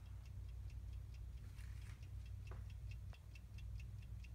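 Roxhall wall clock's key-wound mechanical movement ticking faintly and evenly, about three ticks a second: the movement is running in good working order.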